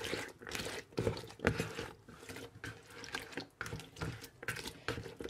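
Spatula stirring a thick mayonnaise dressing with chopped peppers, cucumber and onion in a plastic bowl: wet squelching and scraping in irregular strokes.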